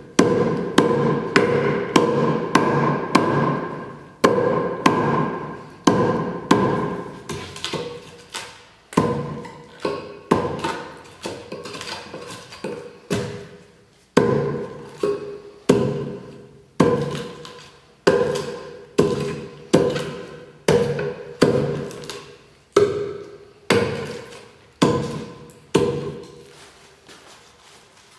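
Mortise axe chopping a mortise into a small log: repeated strikes about once a second, each with a brief ringing tone, a quick cluster of blows at the start, the strikes stopping shortly before the end.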